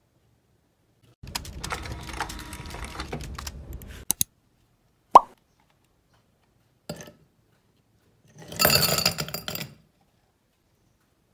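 Ice cubes dropped into a tall drinking glass, clattering briefly near the end. Before it come a few seconds of handling noise and a single sharp click, the loudest sound, about five seconds in.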